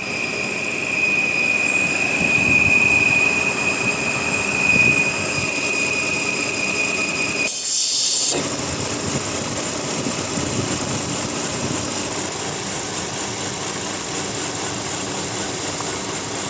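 Volvo XC60 3.2-litre straight-six idling with a steady high-pitched whistle. About seven and a half seconds in, a short hiss sounds as something on the engine is opened, and the whistle stops while the engine keeps running.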